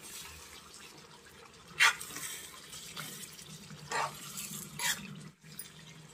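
Steel spoon stirring a thick chicken curry in a kadai, with three short scrapes against the pan over a soft sizzling bubble of the gravy as it reduces in its oil.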